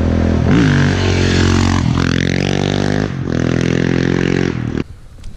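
Single-cylinder dirt bike engine running under throttle on a trail ride, its pitch rising and falling, easing off twice, then dropping away suddenly near the end.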